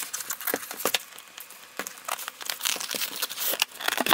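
A cardboard box handled and opened by hand: an irregular run of scraping, rustling and light taps of paperboard.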